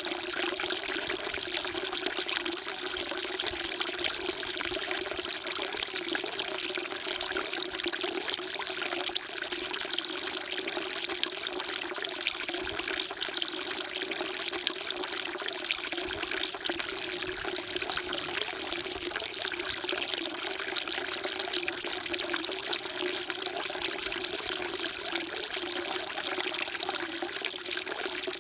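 Water falling steadily from a spout into a temple's stone water trough (sugwak), splashing without a break.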